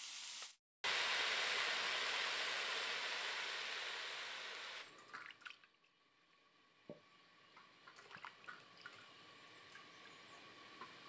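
A steady rush of water for about four seconds, then quieter splashing and dripping as tomatoes are rubbed clean by hand in a steel bowl of water.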